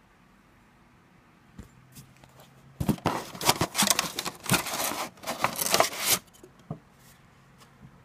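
Packaging being crinkled and torn open by hand: a couple of light clicks, then a dense rustling, tearing burst of about three seconds.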